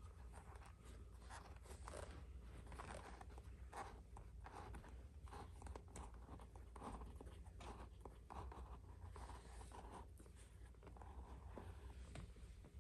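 Faint scratchy rubbing of a leather lace being pulled through the lace holes of a leather baseball glove, in short irregular strokes.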